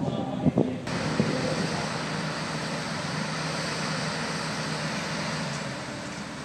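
Caterpillar excavator's diesel engine running steadily under wind noise on the microphone. It comes in abruptly about a second in, after a few sharp knocks.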